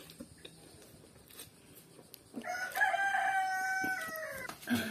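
A rooster crowing once, a call of about two seconds starting about halfway through, held steady and then falling in pitch at the end.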